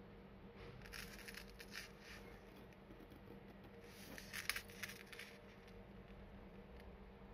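Faint clinking and rustling of a fine gold-coloured chain and bar pendant being turned in the fingers, in two short clusters, over a low steady hum.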